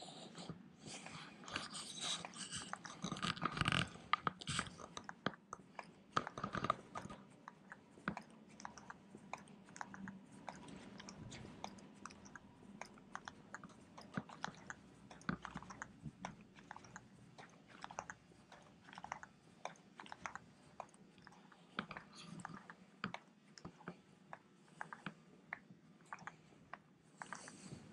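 Faint, irregular clicking and rustling close to the microphone: handling noise from a handheld camera carried while walking. A denser patch of rustling comes a few seconds in.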